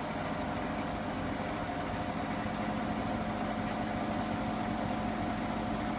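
Hoover washing machine drum spinning at a steady 800 rpm near the end of its Refresh cycle: a steady motor hum with a constant low and mid tone over a rumble.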